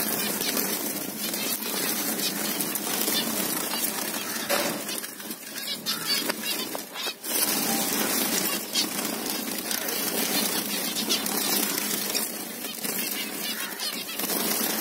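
A flock of zebra finches in an aviary chattering continuously, many short calls overlapping, with wings fluttering as birds fly about.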